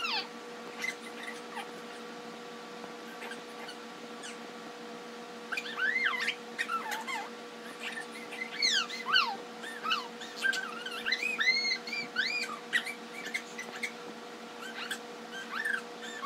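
Baby squealing, with short high-pitched rising and falling cries that come in bursts, the busiest from about six seconds in. A faint steady hum runs underneath.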